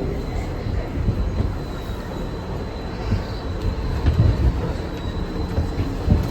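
R62 subway car running along the track, heard from inside the car: a steady low rumble with a faint steady high whine, and a couple of heavier knocks from the wheels late on.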